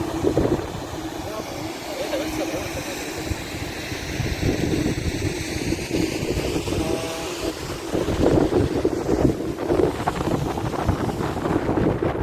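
Wind buffeting the microphone in gusts, with faint voices in the background.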